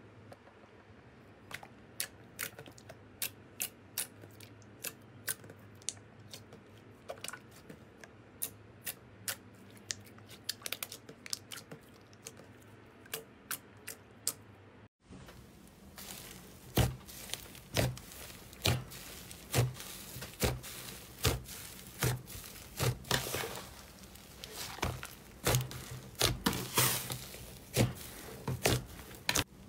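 Slime being handled: sharp little clicks and pops a couple of times a second. Then, from about halfway, louder crackling squishes come in a rough rhythm of one to two a second.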